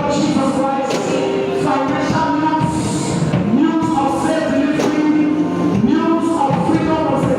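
Church praise music: voices singing a sustained, gliding melody over an accompanying band, with scattered percussion hits.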